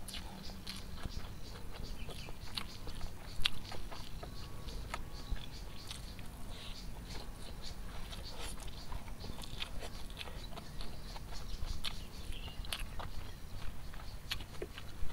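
Close-up chewing of a mouthful of fried rice vermicelli and smashed tempe eaten by hand, with scattered short, sharp wet mouth clicks.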